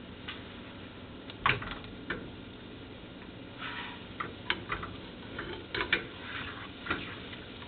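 Kitchen utensils knocking and clicking against cookware at irregular intervals, with a few short scraping sounds in the second half, over a low steady hum. The loudest knock comes about a second and a half in.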